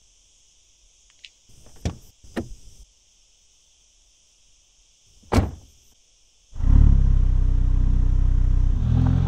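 A few short clicks and a thunk, then about two-thirds of the way in the Mercedes-AMG SL 43's two-litre turbocharged inline four-cylinder petrol engine starts and runs at a steady idle.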